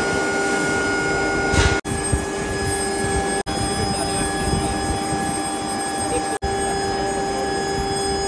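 Metal-workshop machinery running with a steady drone and several steady tones, broken by abrupt cuts about two, three and a half and six and a half seconds in.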